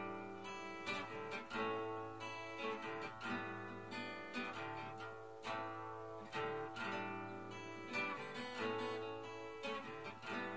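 Instrumental break with no singing: an acoustic guitar and a long-necked mandolin-family instrument strummed together in a steady rhythm, chords ringing between the strokes.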